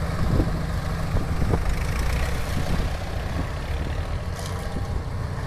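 Antique farm tractor engines running at low speed: a steady low engine hum, with a few short knocks, as tractors pass close by.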